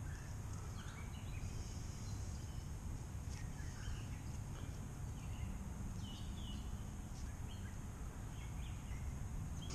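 Small woodland birds chirping here and there, short calls scattered throughout, over a steady low rumble.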